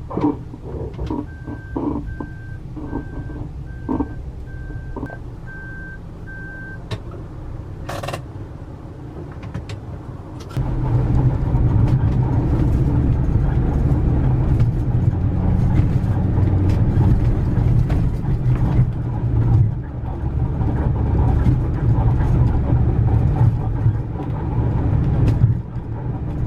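A camper van's reversing alarm beeps about ten times, evenly, while it backs into a parking space, with a few clicks. About ten seconds in, this gives way to the van driving: a loud, steady rumble of engine and road noise inside the cabin.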